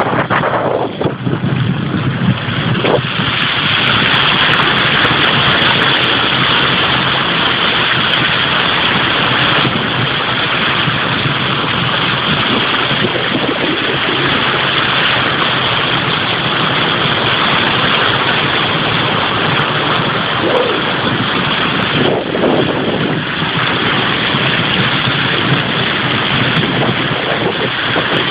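Car being driven, its engine running under a steady rushing hiss of tyres on a wet, flooded road.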